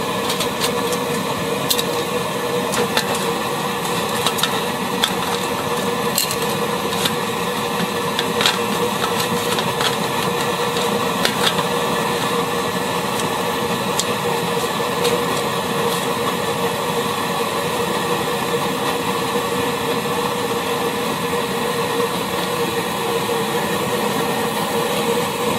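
Petrol burner of an NVA Kleinküche field kitchen running steadily with a constant hum, heating the pots. Metal clinks and knocks in the first half or so as a lid and pots are handled.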